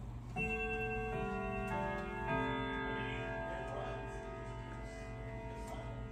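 Sligh Franciscan grandfather clock playing a four-note quarter-hour chime on its chime rods, set off as the minute hand is turned past the quarter hour. The notes are struck about two thirds of a second apart and ring on, slowly fading, over the clock's steady ticking.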